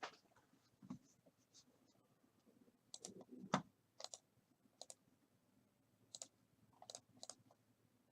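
Faint, scattered clicks and light taps from trading cards and their packaging being handled on a table, with one louder knock about three and a half seconds in.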